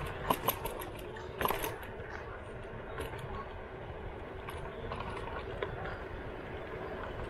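A Slidefox NT electric kick scooter running, with a steady rolling noise and a faint hum. A few sharp clicks and knocks come in the first second and a half.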